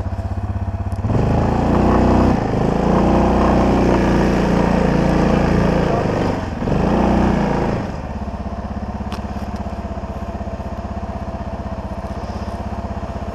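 ATV (four-wheeler) engine running close by. It is throttled up about a second in as the machine creeps forward, eases off briefly around six seconds, and drops back to a steady idle about eight seconds in.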